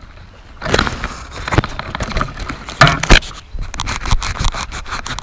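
Irregular crackling, scraping rush of noise from a 5-inch FPV racing quadcopter in flight, with no steady motor tone standing out.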